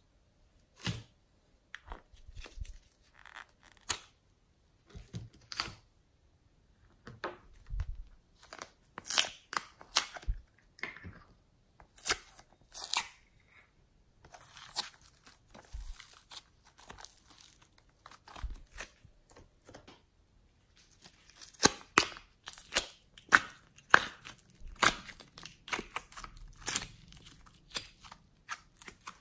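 Soft modelling clay and foam clay being squeezed and torn apart by hand, giving irregular crackling and sticky tearing clicks in clusters, busiest near the end.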